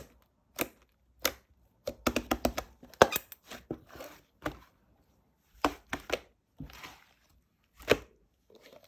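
Irregular sharp clicks and taps, with a quick flurry of them about two to three seconds in and short rustling scrapes between.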